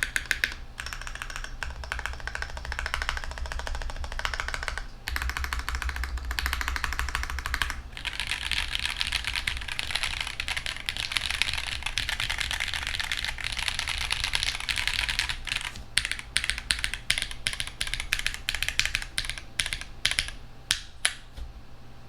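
Typing on a QK65 mechanical keyboard with Strawberry Jelly V3 switches (nylon housings, 47 g spring) and GMK keycaps: a clacky keystroke sound. The typing is dense and continuous, then about sixteen seconds in it breaks into separate, spaced key presses that stop shortly before the end.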